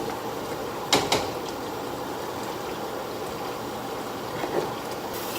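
Steady hiss of food cooking on the stove, with a short double clatter of kitchenware about a second in and a lighter knock near the end.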